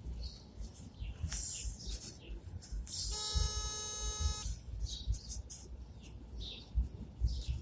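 A single steady horn-like tone held for about a second and a half, a few seconds in, over intermittent bird chirping.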